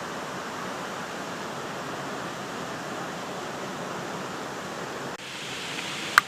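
Steady rush of flowing water in a small stream or canal. About five seconds in it breaks off to a quieter, thinner background, and a sharp click follows just before the end.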